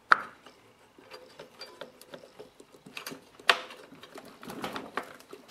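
Small plastic clicks and knocks of a carburetor being handled and pushed onto an engine's intake tube. A sharp click comes right at the start and another about three and a half seconds in.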